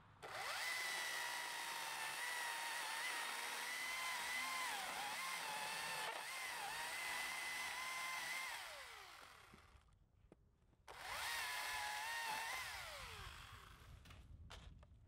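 Husqvarna T535i battery chainsaw running at full speed and cutting a log: a steady high electric whine that dips in pitch as the chain bites, then spins down about eight seconds in. After a short pause it is triggered again for under two seconds and spins down.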